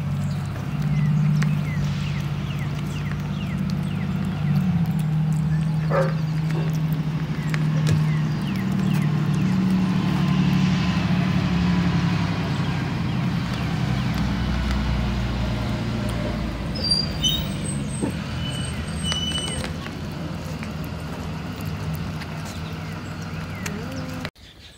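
Diesel engine of a school bus running, its low pitch shifting up and down in steps, with a few short high squeaks about three-quarters of the way through.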